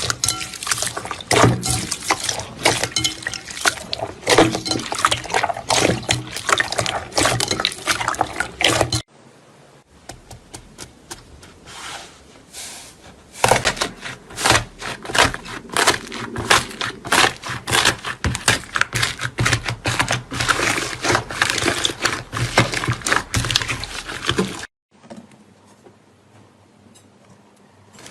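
Slime being squeezed and poked by hand, making dense wet clicking and popping crackles. It drops off abruptly about nine seconds in, builds back up, then cuts to a much quieter faint squishing near the end.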